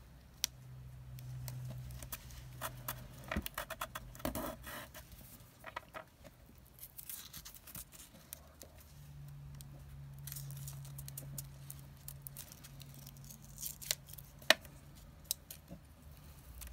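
Glitter washi tape being cut and pressed onto card: a quick run of crackling snips about three to five seconds in, then scattered clicks and rustles, over a low steady hum.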